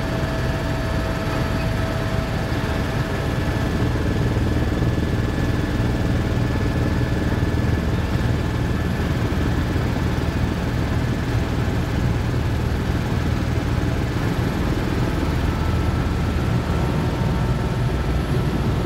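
Helicopter in cruising flight heard from inside the cabin: a steady, loud, low drone of rotor and engine, with a few faint steady whines above it.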